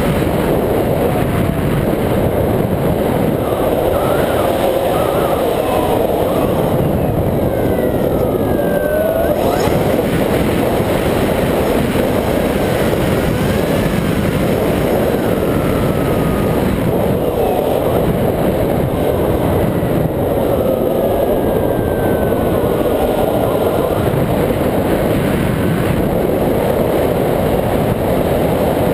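Onboard-camera audio from a Multiplex Easy Star RC plane in flight: steady loud wind rush, with the faint whine of its electric pusher motor and propeller sliding up and down in pitch.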